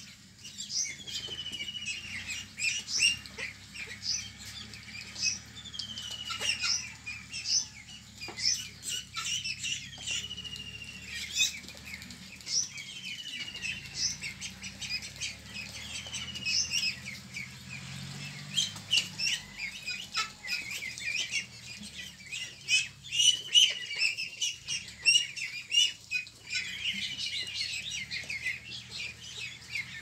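A flock of young ducks peeping: a dense, continuous chatter of short high peeps, with a longer peep that falls in pitch coming again every few seconds.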